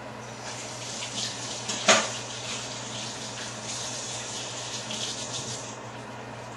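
Kitchen tap running into the sink as hands are washed, with a sharp knock about two seconds in. The water stops near the end.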